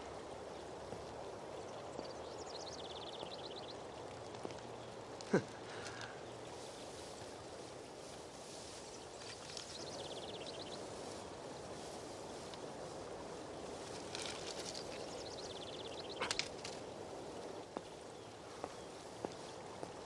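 Outdoor country ambience: a steady hiss with short, fast chirping trills now and then, and one sharp click about five seconds in.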